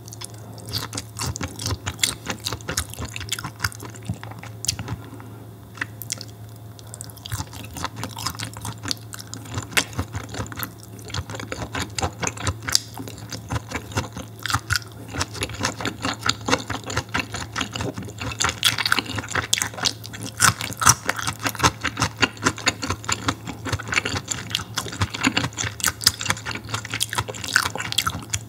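Close-miked wet chewing and mouth sounds of a person eating vinegar-cured mackerel (shime saba): many small wet clicks, busier and louder in the second half, over a steady low hum.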